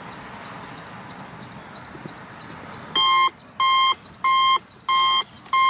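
Xhorse Key Tool Plus key programmer beeping five times, about one and a half beeps a second, starting about three seconds in, after a quiet stretch of steady background hiss. The beeps signal that dealer key generation has succeeded.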